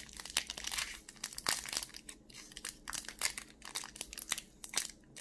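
Foil wrapper of a Pokémon card booster pack crinkling and crackling in the fingers as it is worked and pulled at its crimped top seal to tear it open, in irregular sharp crackles. The wrapper is stubborn and hard to tear.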